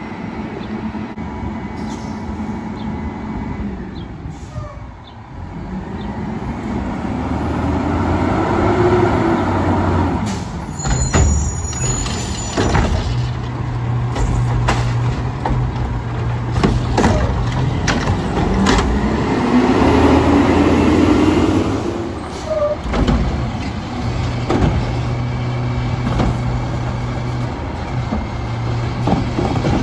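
Autocar WXLL garbage truck with a McNeilus front loader working a pickup. Its diesel engine runs steadily and revs up twice to drive the hydraulics, with clanks and knocks from the loading gear in between.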